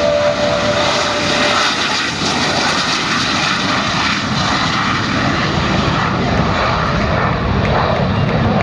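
Sea Harrier's Rolls-Royce Pegasus turbofan at high power, a loud, steady jet noise as the aircraft lifts off and climbs away.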